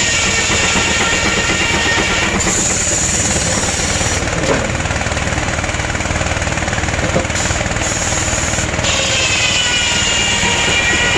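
Steam-driven sawmill's large circular head saw cutting hardwood, a high whine that sounds during the cuts and drops away between them, over the steady heavy din of the mill machinery and carriage.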